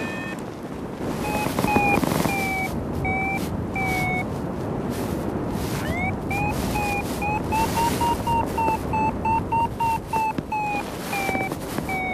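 Paragliding variometer beeping over wind rushing past the microphone. The beeps come in a short run, pause, then return about halfway through, quicker and rising in pitch before slowly dropping near the end: the vario's climb tone, signalling the glider is going up in a thermal.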